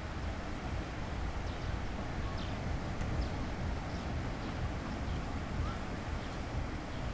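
Seaside ambience: a steady wash of sea waves with wind buffeting the microphone, and a few faint, short, high chirps scattered through it.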